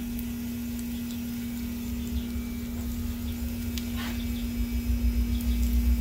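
A steady low hum at one pitch, with a deeper rumble that grows louder over the last second and a half and a faint tick about four seconds in.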